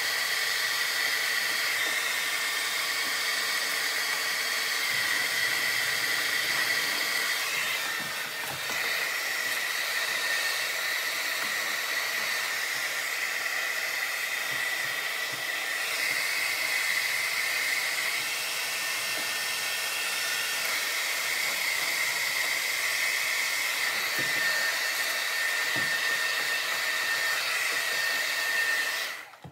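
A handheld hot-air blower running steadily, a loud hiss with a high whining tone, heating carbon-fibre vinyl wrap to soften it onto a car's door trim. It dips slightly about eight seconds in and cuts off suddenly at the very end.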